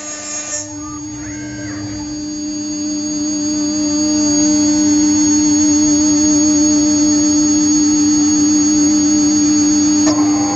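CNC router spindle milling an aluminium plate with an end mill: a steady high whine over cutting noise. It grows louder over the first few seconds, then holds even.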